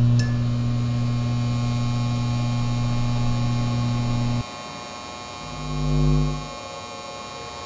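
Steady electrical hum drone that cuts off abruptly a little over four seconds in, followed by a low, deep horn-like tone that swells up and fades away over about a second.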